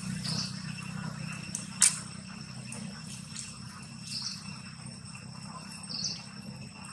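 Insects trilling steadily in the background, with a short high chirp every second or two and a low hum underneath. One sharp click about two seconds in.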